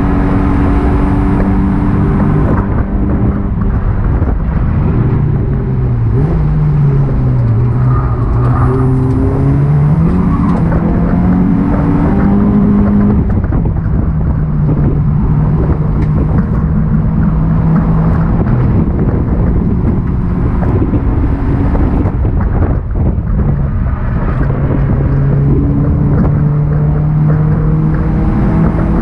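Honda Accord race car's engine heard from inside the stripped cabin, running hard around the track with road and wind noise. Its pitch falls as the car slows for corners and climbs again as it accelerates out, several times over.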